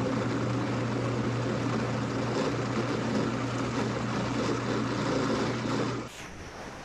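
NutraMilk countertop blender-processor running, its motor blending a batch of potato leek soup with a steady hum. The sound drops sharply in level about six seconds in.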